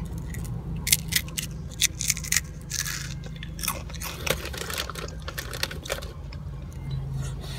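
A child chewing a crunchy snack close to the microphone: irregular crisp crunches, over a steady low hum.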